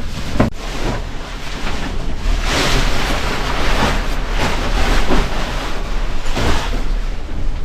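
Strong wind buffeting the microphone, a rushing noise with a low rumble that gusts louder partway through, with a few short knocks.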